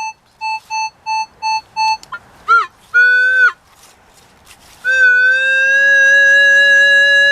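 Metal detector signal tones over a strong target: a run of short, even beeps, then a couple of brief tones, then one long steady tone held about three seconds that cuts off suddenly. It is a solid, repeatable signal that the detectorist calls "banging" and reads as silver.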